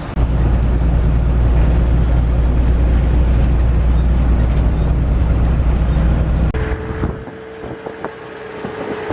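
Slow boat's engine running with a loud, steady low drone that stops abruptly about six and a half seconds in. A quieter stretch follows, with a steady higher tone and a few clicks.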